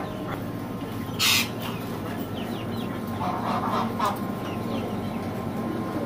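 Caged birds calling: chickens clucking among quick chirps of small cage birds, with one sharp loud cry about a second in and a harsher call around three and a half seconds.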